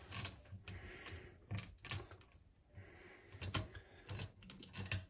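Light, irregular clicks and clinks of a push-button basin waste's small parts (centre bolt, washer and fittings) being handled and fitted together under the basin.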